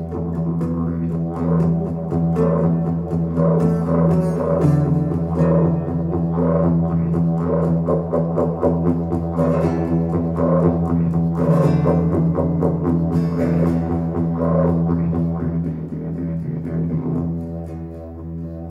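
Acoustic guitar picked rapidly over a steady low drone, growing a little quieter near the end.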